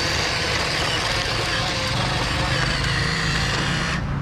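Huina remote-control dump truck running across sandy ground: a steady mechanical whir with a low hum, the higher part of it cutting out about four seconds in.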